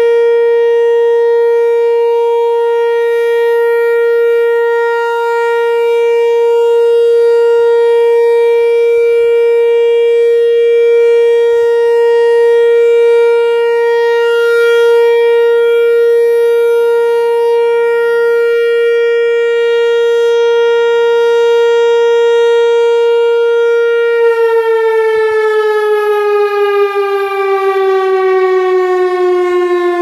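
Whelen WPS-4004 electronic siren with a four-horn rotating head, sounding a steady alert tone near 465 Hz from an analog controller, swelling slightly as the head turns. About 24 seconds in, the pitch begins gliding down as the siren winds down at the end of the test.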